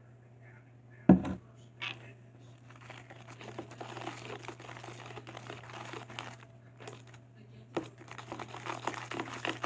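Slime mix of glue and shaving cream being stirred in a container, a sticky crackling that comes in two long stretches. A sharp knock about a second in, from the utensil or container, is the loudest sound.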